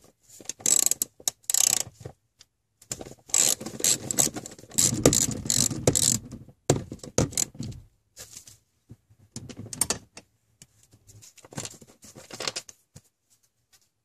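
Socket ratchet wrench clicking in rapid bursts as the bolts anchoring a car's front seat to the floor are loosened and backed out. The longest run of clicks comes from about three to seven seconds in, and it thins to scattered clicks near the end.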